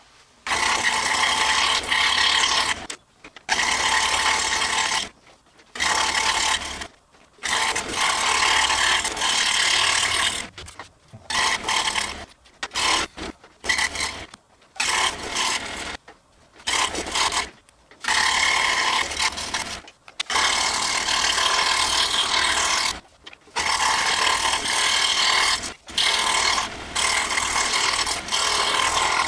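Scroll saw with a number two blade running and cutting through hardboard. The sound stops short and starts again about a dozen times.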